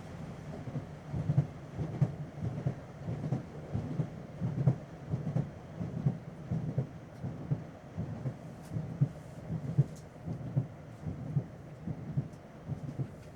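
Interior of a British Rail Class 317 electric multiple unit on the move: a steady low rumble with frequent irregular low knocks and jolts from the running gear.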